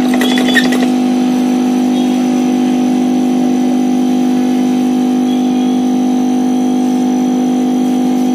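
A steady, even hum from a running electric machine, unchanging throughout, with a few light clicks about half a second in.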